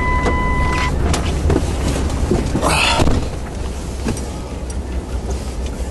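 Vehicle engine idling with a steady low rumble, heard from inside the cab. A steady electronic beep sounds for about the first second, then come a few knocks and a short rustle as the driver climbs into the seat.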